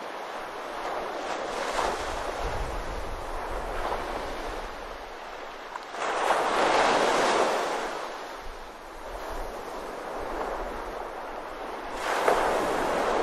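Ocean surf washing onto a beach: a steady rush of breaking waves that swells and ebbs, loudest about halfway through and again near the end.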